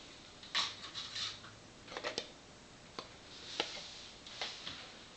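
Scattered light clicks, taps and rustles of small plastic handheld meters being handled and moved.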